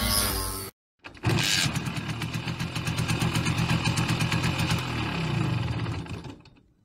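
Simson moped's two-stroke single-cylinder engine running with an even, rapid pulsing, dying away near the end.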